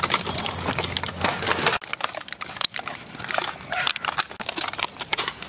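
Aluminium foil takeaway trays being handled and their lids crimped down by hand: irregular crinkling and crackling of thin foil.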